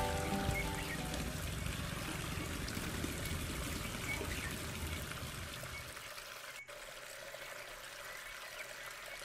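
Water pouring steadily in a thin stream from a bamboo pipe spout and splashing below.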